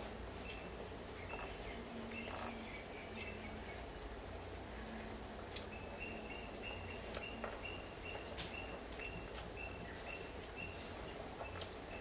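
Outdoor garden ambience: a steady high insect drone throughout, with short high chirps repeated in runs, most of them about six to nine seconds in, and a few faint clicks.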